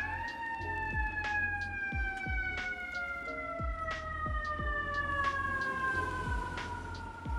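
An emergency-vehicle siren wailing: one long wail that peaks right at the start, then slowly falls in pitch throughout. Background music with a steady beat plays underneath.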